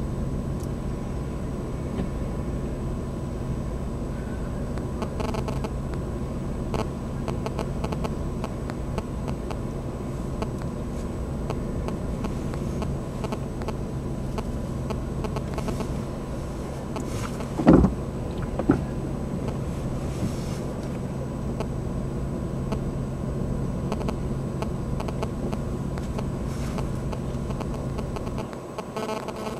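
Steady low vehicle running noise, an engine hum over a rumble. About two-thirds of the way in there is one sharp knock, and a smaller knock follows a second later.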